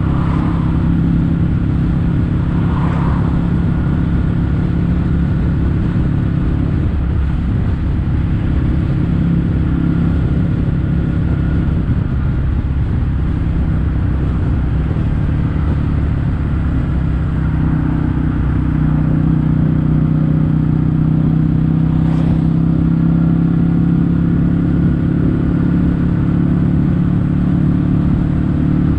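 Kawasaki W800's air-cooled parallel-twin engine running through Yamato stainless-steel Cabton silencers on a steady ride. Its note rises a little and holds higher about two-thirds of the way in.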